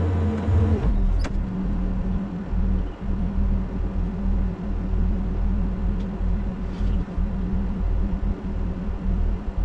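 Engine of earth-moving equipment running steadily. Under a second in it drops from a higher, louder speed to a lower one, and there is a single sharp click.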